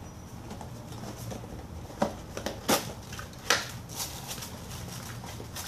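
A small cardboard box being opened by hand: light scraping and handling of the paperboard, with three sharp snaps or taps of the lid and flaps in the middle.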